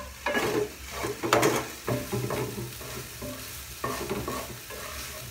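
Wooden spatula stirring and scraping a frying tomato and spice mixture in a pan, over a steady sizzle. Several scraping strokes come in the first two seconds and again about four seconds in.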